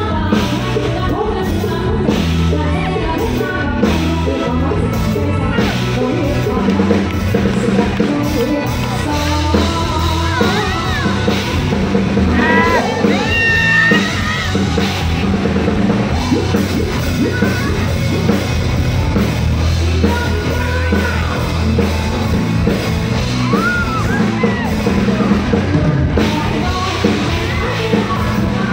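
Live band music with a woman singing into a microphone over drum kit and keyboards, played loud through stage loudspeakers.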